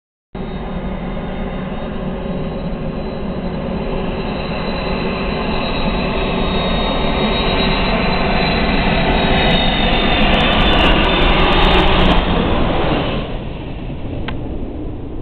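Airbus A330-300 cabin noise during landing: jet engine and rolling rumble swelling steadily to a loud peak, then dropping off sharply about thirteen seconds in. The sound cuts out briefly at the very start.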